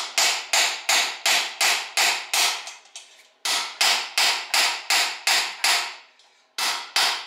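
A steady run of hammer blows, about two or three a second, on an aluminum bearing driver, tapping a bearing race down into a GM 8.2-inch 10-bolt rear axle housing. There are short pauses about three and six seconds in.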